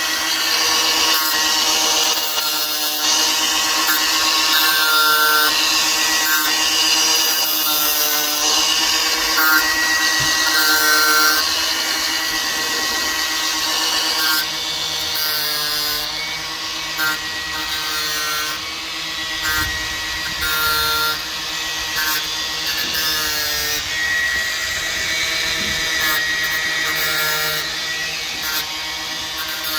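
Angle grinder running at speed while its thin disc sharpens the cutters of a Stihl chainsaw chain one tooth after another. A steady motor whine runs under short grinding rasps that come about once a second as the disc touches each tooth.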